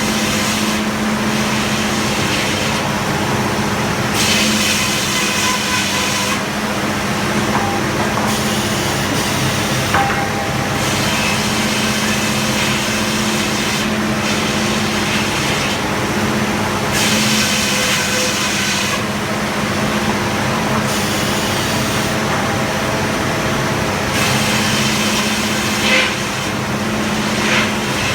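Frick circular sawmill running under a steady engine. The blade cuts wood in repeated passes, each cut adding a higher-pitched ringing saw sound for one to two seconds, several times over.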